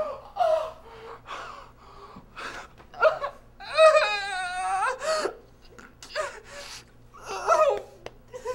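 A person gasping and whimpering in wordless panic, in short breathy bursts, with one long quavering wail about four seconds in.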